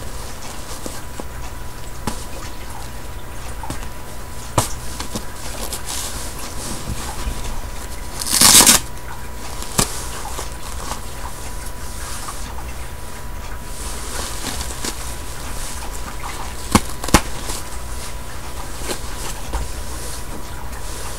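Hands changing a disposable diaper on a doll: soft rustling and handling, a loud, short crinkling rip about eight seconds in, and a few sharp clicks, over a steady electrical hum.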